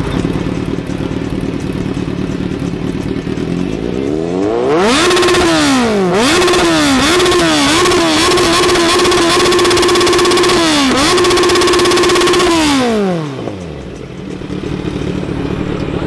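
Kawasaki Z900's inline-four engine idling, then revved hard from about four seconds in: a run of quick throttle blips, a high rev held for a few seconds with one brief dip, then falling back to idle near the end. Loud.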